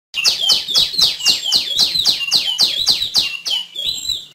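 Female tiểu my songbird calling: a fast, even run of sharply falling, high-pitched notes, about four a second, changing to a softer, different note near the end.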